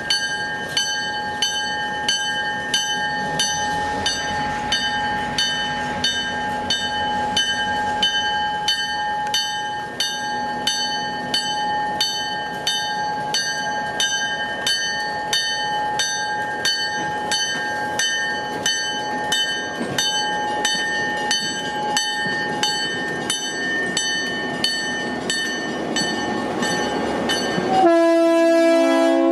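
A locomotive bell rings steadily, struck a little under twice a second. Near the end a loud train horn blast cuts in.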